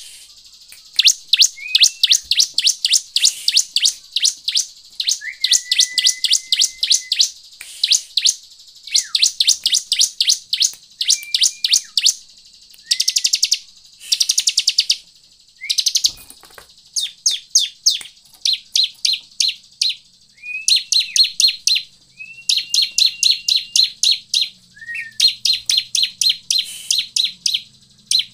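Bar-winged prinia (ciblek) singing: rapid trills of sharp, high chirps in bursts of about half a second to a second with short gaps, some bursts opening with a brief lower whistled note.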